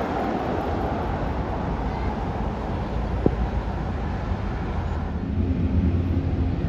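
Street traffic: car engines and tyre noise, with a deeper engine note building over the last couple of seconds and a single sharp click about halfway through.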